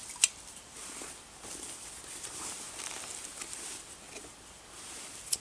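Hands rustling while handling small gear and packaging, with a sharp click just after the start and another near the end.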